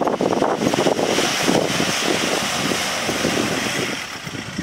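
Four-wheel-drive ute's engine working as it climbs a soft sand rise, mixed with loud wind buffeting on the camera microphone. The noise eases a little near the end.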